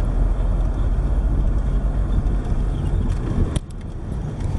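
Road and engine noise inside a moving car, a steady low rumble, cutting off about three and a half seconds in to a quieter background.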